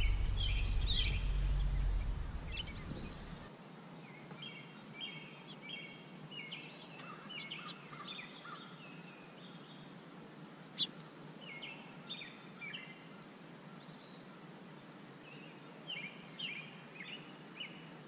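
Small songbirds chirping and singing in short, scattered phrases. A low rumble fills the first few seconds, and a single sharp click comes about eleven seconds in.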